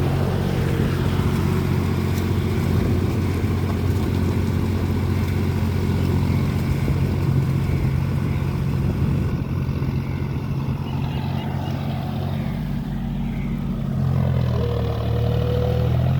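John Deere four-wheel-drive tractor's diesel engine running steadily while ploughing in deep mud. Its low note shifts a couple of seconds before the end.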